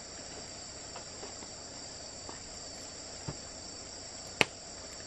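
Steady, high-pitched insect chorus of crickets or cicadas, with a few faint knocks and one sharp click about four and a half seconds in.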